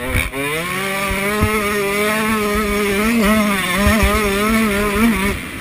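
Dirt bike engine revving up hard, then held at high revs with a wavering pitch and a few brief dips, easing off near the end. Wind rushes over the microphone and low thuds come from the bike hitting ruts.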